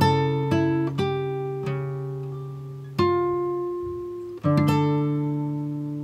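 Background music on acoustic guitar: plucked chords that ring on and slowly die away. New chords are struck every second or so, with longer pauses for the chords to fade near the middle.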